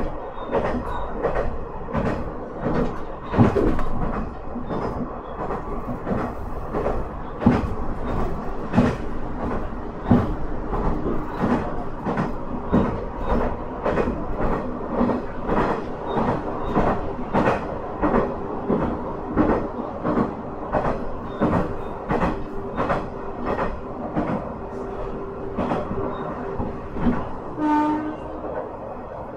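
Minamiaso Railway MT-4000 diesel railcar running at speed, its engine droning steadily under a fast, regular clickety-clack of wheels over rail joints. Near the end the engine note drops away and a brief tone sounds.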